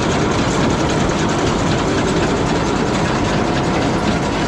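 Heavy farm machinery engine running steadily and loudly, with a fast, even mechanical pulsing through it.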